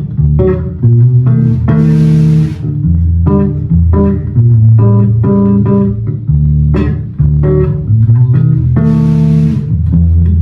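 Electric bass guitar played through a Fender Rumble 25 V3 bass combo amplifier: a line of separate plucked low notes. Two short, bright hissy bursts sound over it, about two seconds in and again near the end.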